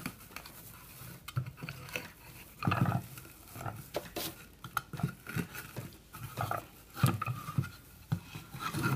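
A Skuttle whole-house humidifier's foam filter pad being worked by hand onto its plastic mesh frame: rustling and scraping with irregular clicks and knocks, the heaviest about three seconds in and again about seven seconds in.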